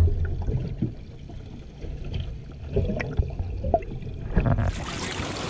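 Muffled underwater sound of water moving in a live-bait tank, with a few dull knocks as a hand reaches in among the baitfish. Near the end it changes to open-air wind and sea noise.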